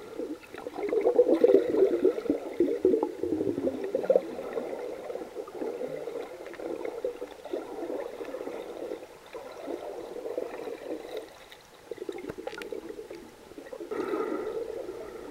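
Muffled water gurgling and rushing, heard through an underwater camera housing as the swimmer moves through the water, coming in uneven swells every second or two.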